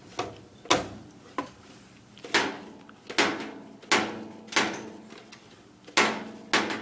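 A small child banging an object hard and repeatedly: about eight loud knocks, irregularly spaced, each with a brief ringing tail.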